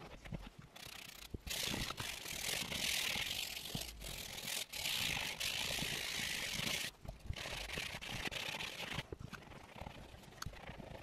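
Microfibre cloth rubbing over a leather car seat, a scratchy hiss in two long strokes of two to three seconds each with a short break between, then softer wiping.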